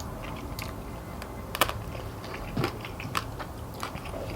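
Chicken wing bones being bitten and crunched between the teeth: a run of irregular sharp cracks and crackles, the loudest about one and a half and two and a half seconds in.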